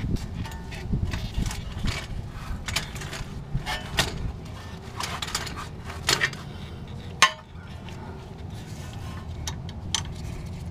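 Metal tools and steering parts clinking and knocking at irregular intervals under a car as a power steering rack is refitted, with one sharper knock about seven seconds in.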